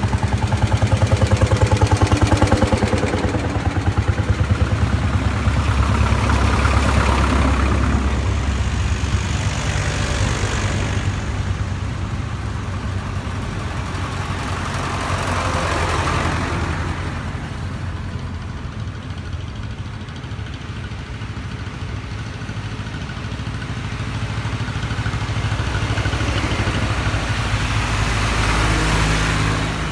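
Vintage tractor engines running as a procession of old tractors drives past one after another. The first few seconds have a heavy, fast, regular pulse, and the sound swells as each tractor goes by, about a third and again near the end.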